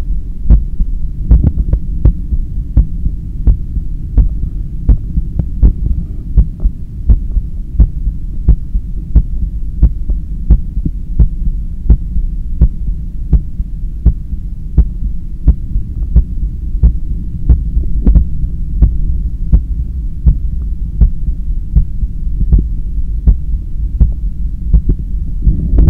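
A human heart beating, heard through a stethoscope: a steady, even lub-dub about once a second over a low rumble of blood flow. It is a fit runner's heart slowing down as it recovers after a 10 km run.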